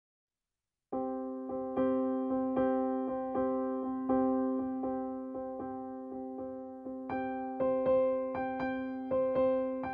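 Silence for about a second, then background music on a piano-like keyboard begins: notes struck at a steady pace of about two a second, each fading before the next.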